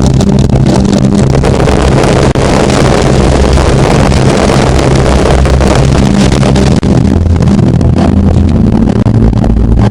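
Loud, continuous firework barrage: dense crackling over a constant low rumble, with brief dips twice.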